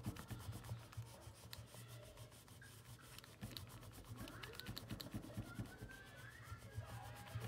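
Red colour pencil rubbing and scratching on paper in quick, repeated colouring strokes, faint throughout.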